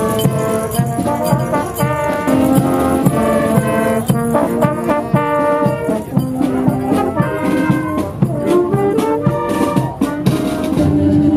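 Marching band playing a tune on trombones and trumpets, with a steady beat.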